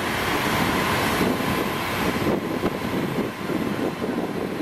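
Steady wind rush and buffeting on the microphone on the open deck of a ferry underway, mixed with the ship's engine drone and the water.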